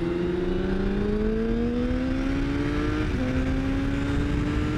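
Motorcycle engine heard from onboard the bike, accelerating with a slowly rising pitch, then an upshift about three seconds in drops the pitch before it starts climbing again.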